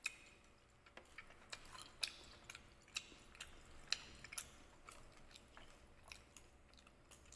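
Faint chewing of tteokbokki rice cakes, with irregular sharp clicks two or three times a second.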